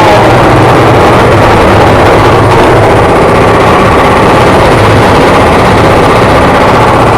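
Jackhammer rapidly hammering, breaking out concrete, very loud and steady over a low machine hum.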